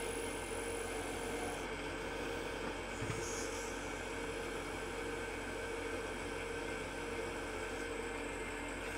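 Wood lathe running at a steady speed with an even hum, spinning a small wooden bell ornament while a guitar-string wire burner is held against it to burn decorative lines.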